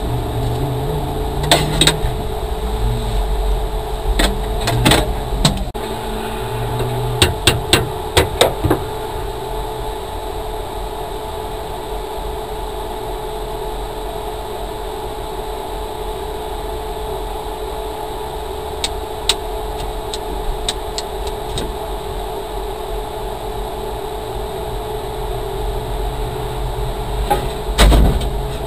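Repair work on the underside of a stationary rally car: a run of sharp knocks and taps in the first nine seconds, a few more later and a louder knock near the end, over a steady low hum.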